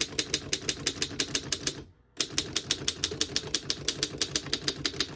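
1915 Underwood No.5 manual typewriter being typed on: a fast, even run of key and typebar strikes, about eight a second, with a short pause about two seconds in.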